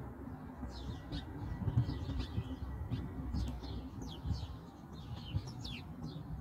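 Small birds chirping in many short, quick notes over a steady low rumble.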